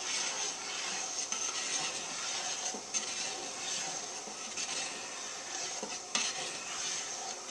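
A long spoon stirring in a speckled enamel stockpot of hot water as malt extract is slowly poured in to make wort: a steady swishing scrape with a few light knocks against the pot.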